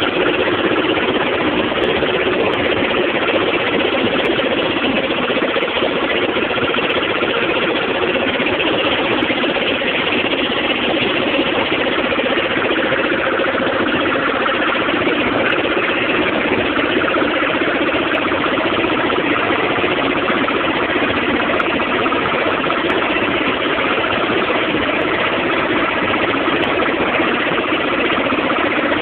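Small boat's engine running steadily and loudly, with no change in speed.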